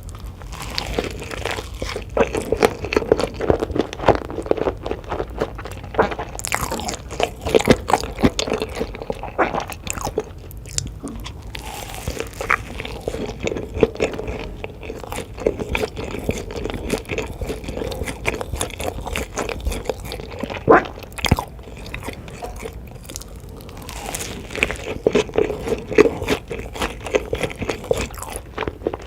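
A person eating close to the microphone: steady chewing and biting, with many sharp, irregular crunches of crisp food.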